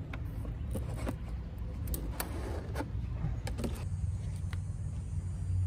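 Scattered light clicks and taps of a hand tool working at the Torx screws of a Mercedes SL500's ignition distributor cap, over a steady low rumble that grows louder about two thirds of the way through.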